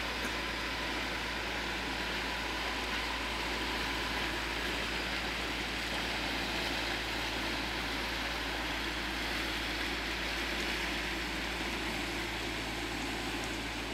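Inland motor cargo ship on a canal, its diesel engine giving a steady low drone as it passes and draws away, under a steady rushing noise.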